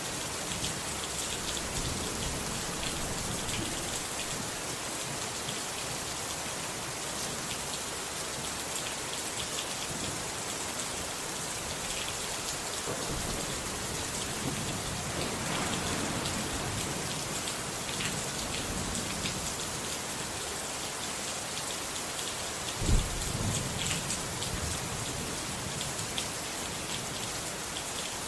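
Steady rain falling, with scattered drops ticking, and a sudden clap of thunder about three-quarters of the way through.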